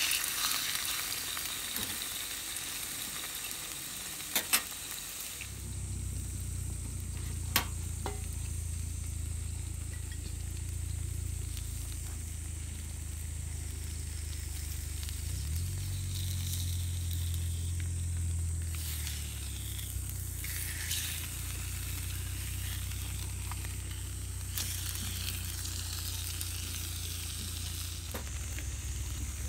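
Seasoned yellowtail fillets sizzling steadily in a small frying pan over a gas burner, with a few sharp taps in the first eight seconds. A low steady hum joins about five seconds in.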